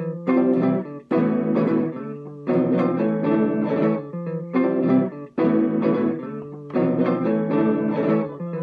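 Instrumental music led by a plucked guitar, with a pitched melody line over it, playing in short phrases broken by brief pauses. It sounds deliberately rough.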